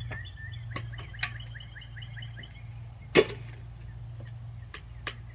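A bird sings a fast series of repeated chirps over a steady low hum. A few light clinks come through, then a loud single metal clank about three seconds in as the emptied steel charcoal chimney starter is set down beside the smoker.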